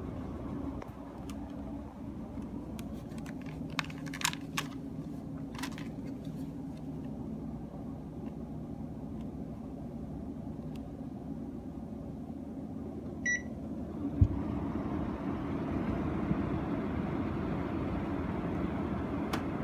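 Panasonic CS-GX226C air conditioner indoor unit running with a steady low hum, the abnormal noise the owner says persists even after the fan and motor were replaced. About 13 s in the unit beeps once, as when it takes a remote-control command, and just after it a thump is followed by a louder, steady rush of airflow as the fan speed changes.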